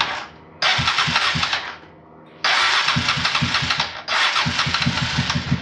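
Honda Transalp V-twin engine running, its low firing pulses steady, broken by four loud bursts of rushing noise, each about a second long, with quieter gaps between them.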